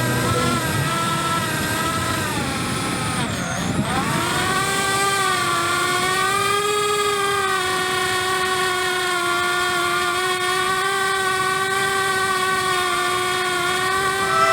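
Cinewhoop FPV quadcopter's motors and propellers whining. The pitch dips sharply about three and a half seconds in as the throttle drops, then climbs back and holds fairly steady with small wavers.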